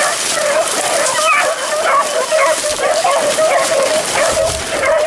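A pack of beagles baying without a break as they run a rabbit's track, several voices overlapping.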